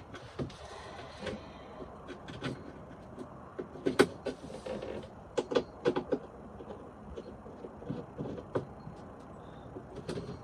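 Rummaging through small hardware and storage: a scattered run of clicks, knocks and clattering of small hard objects, with the loudest knock about four seconds in and a quick cluster of clacks between five and six seconds.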